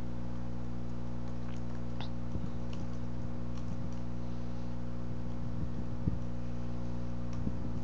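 Steady low electrical hum picked up by the recording, with a few faint, scattered computer keyboard clicks as a reference entry is typed.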